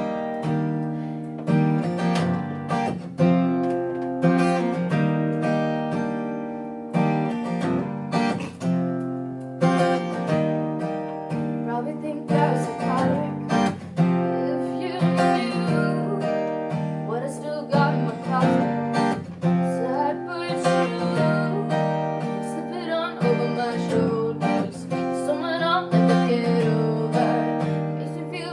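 Acoustic guitar strumming chords with an electric bass guitar, played live as a band's song.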